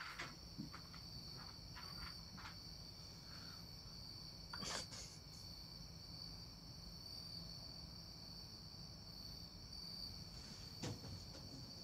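Faint room tone: a steady hiss with a constant high-pitched whine, and a few soft knocks or rustles, the clearest about five seconds in and again near eleven seconds.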